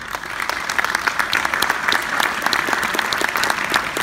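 Audience applauding, starting abruptly, with individual claps close to the microphone standing out from the crowd.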